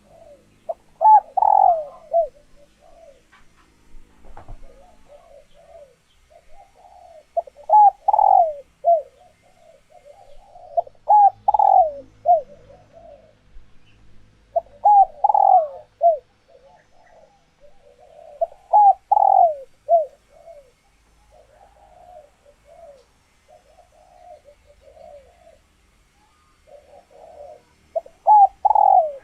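Female spotted doves cooing in repeated low coo phrases, a louder phrase every three to four seconds with softer cooing between. These are the calls of hens in laying condition, which spur cock doves to call and court.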